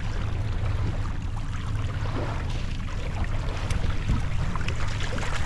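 Fishing boat's motor running steadily at low speed, a constant low hum, with water and wind noise over it.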